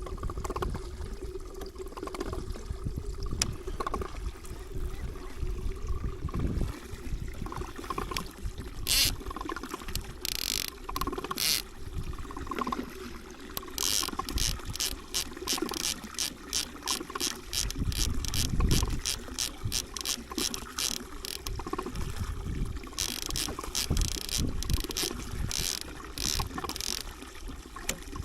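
Water lapping and trickling against a small fishing boat's hull, with a steady low rumble of wind on the microphone. Runs of quick, sharp clicks, about three a second, come through the middle and again near the end.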